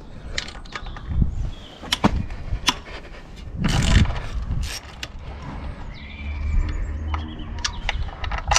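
Small metal clicks and knocks from bolts, a spacer and a steel guard bar being handled and fitted against a motorcycle frame, with a louder scraping rustle about four seconds in.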